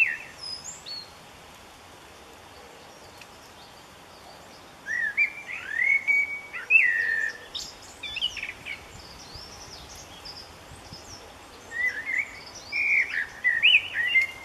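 Young wrens chirping in short rising and falling calls from a nest box, in three bursts: right at the start, again from about five to eight seconds in, and near the end, over a faint steady hiss.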